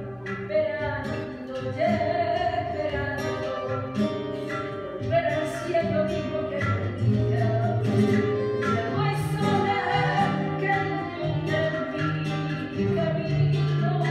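Live Argentine tango music: a singer's voice over acoustic guitar accompaniment, with plucked chords.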